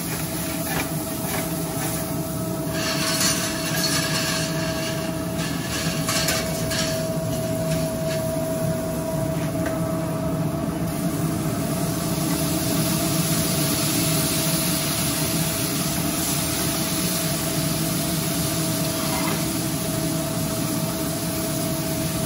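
Hot dog slices sizzling in a sauté pan over a gas burner against a steady mechanical hum and rumble, with scattered crackles and clinks a few seconds in. From about halfway, a brighter, more even sizzling hiss follows as cheese sauce goes into the hot pan.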